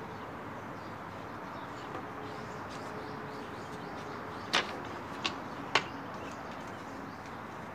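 Steady outdoor background noise with three sharp clicks in quick succession a little past the middle.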